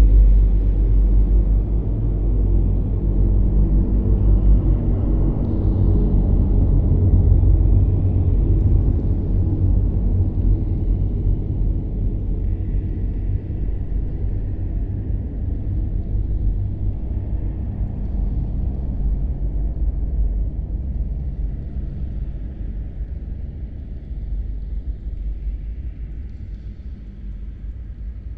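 Dark cave ambience sound effect: a deep, steady rumbling drone with faint airy wisps above it, slowly fading toward the end.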